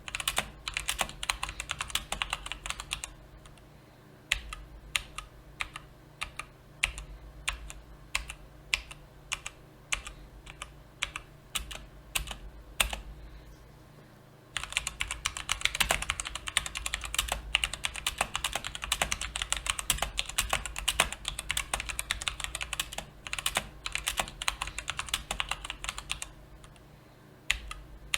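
Typing on a mechanical keyboard with brown (tactile) switches: a run of separate keystrokes, then fast continuous typing from about halfway through, thinning out near the end.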